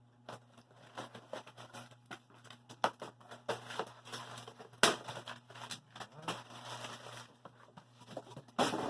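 Packing material being pulled out of a shipping box: crinkling and rustling with scattered knocks and clicks, the loudest a sharp knock about five seconds in.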